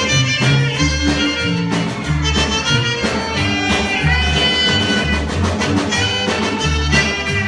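A band playing northern Mexican regional music, with a bass line that steps between low notes about once a second under a busy melody from wind or reed instruments.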